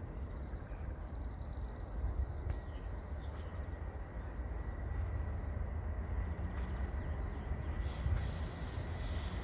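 Small birds chirping in short falling calls, in two clusters, over a low steady rumble of a distant train. From about eight seconds in a hiss grows as the EP1P electric locomotive and its passenger train approach.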